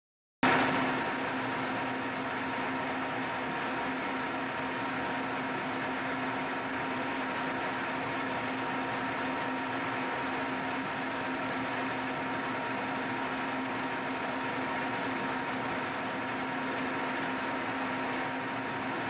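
Steady mechanical hum of running shop machinery, a constant low tone with a higher whine over an even noise; it cuts in abruptly about half a second in.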